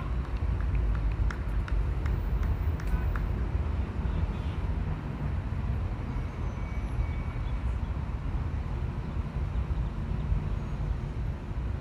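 Steady low outdoor rumble of background noise, with a few faint short high ticks and chirps in the first three seconds.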